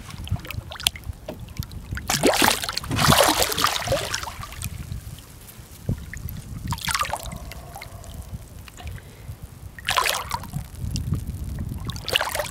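Hooked lemon shark thrashing at the water's surface beside the boat, splashing in bursts. The biggest splashing is about two to four seconds in, with shorter splashes around seven and ten seconds and again near the end.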